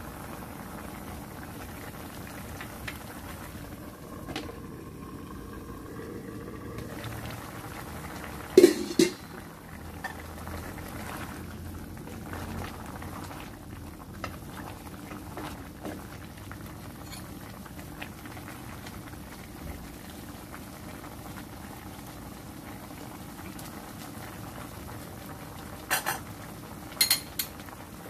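Chicken liver and gizzard adobo boiling in a pan, a steady bubbling. It is broken by a few sharp knocks: two loud ones about a third of the way in and three more near the end.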